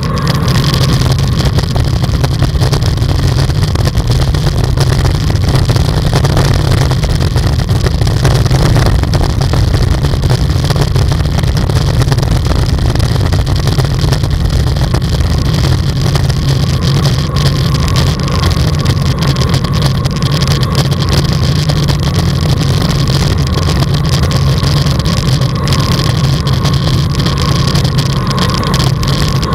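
Steady low rumble of wind buffeting a camera microphone moving at cycling speed, mixed with the hiss of bicycle tyres on a wet road.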